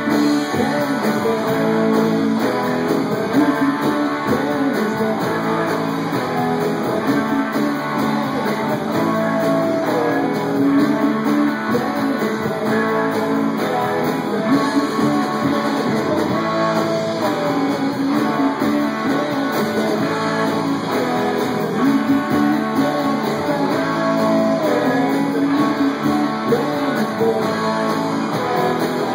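Live band music with electric guitar to the fore, playing steadily through a passage of the song.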